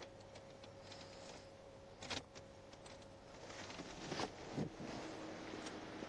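Faint steady hum of idling cars, with a few short, faint clicks and knocks about two and four seconds in.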